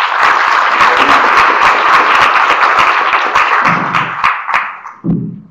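Audience applauding: dense, loud clapping that thins out and dies away near the end.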